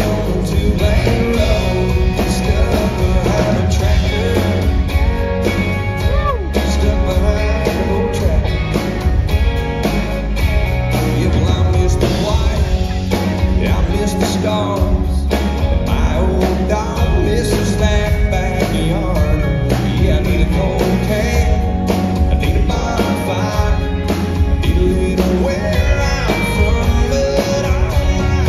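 Live country song: a male singer singing lead with acoustic guitar, backed by a band with a steady bass and drum beat.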